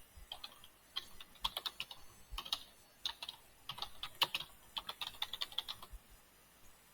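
Typing on a computer keyboard: a run of irregular key clicks that stops about six seconds in.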